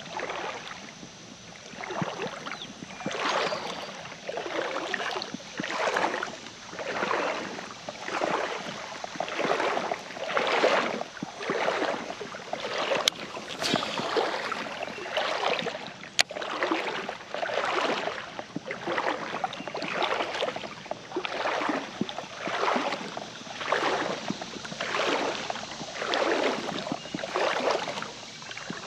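Legs wading through shallow creek water, a swishing splash with each stride about once a second. Two sharp clicks come near the middle.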